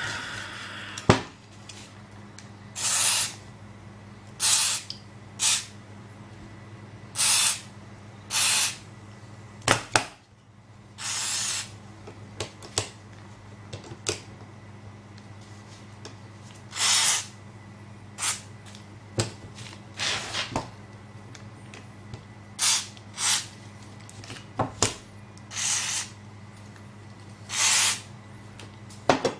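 WD-40 aerosol can spraying in a series of short hissing bursts, more than a dozen with pauses between, lubricating the rusted internals of a jammed uPVC sashlock. A few sharp knocks come in between.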